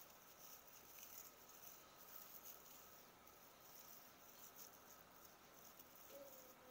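Near silence with faint, irregular crinkling and rustling of artificial Christmas tree branches being spread and fluffed by hand, over a thin steady background whine.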